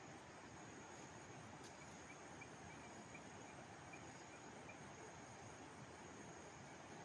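Near silence: a faint steady hiss with a thin high steady tone, and a short run of faint insect chirps about two to five seconds in.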